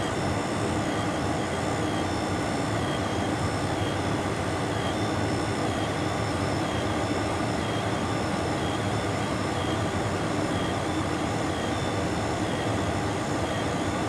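Two-stage Bryant gas furnace running steadily on high fire, its burners, inducer and blower making a continuous even rush and hum. Over it comes a faint high whine from a small thermal printer feeding out a paper printout.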